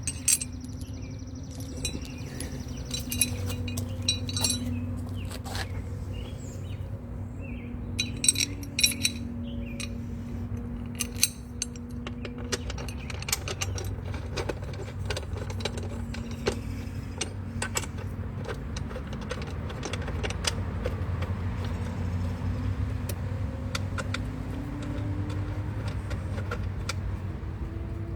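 Metal hardware clinking and tools clicking against metal in scattered, irregular strikes while a saddlebag mounting bracket is bolted onto the motorcycle, over a steady low hum.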